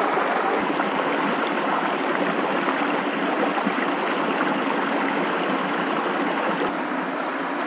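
Steady rush of running water, with a couple of faint clicks.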